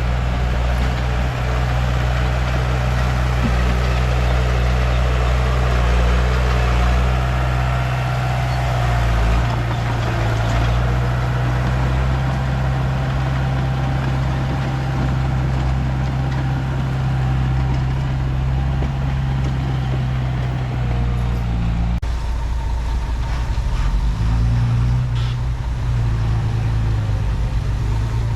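Komatsu D31P bulldozer's diesel engine running steadily, with a low, even engine note. The note shifts abruptly about three-quarters of the way through.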